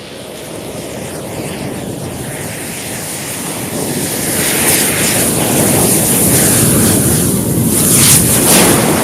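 A big mound of matches burning, a rushing hiss of flame that swells louder over several seconds. Sharp crackling flare-ups come about eight seconds in as more match heads catch.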